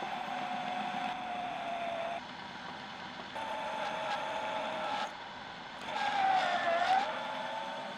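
Drill press with a 750 W AC motor on a VFD, running with a steady whine that sags in pitch twice as the bit bites into the work, the second time loudest. The sound changes abruptly a few times.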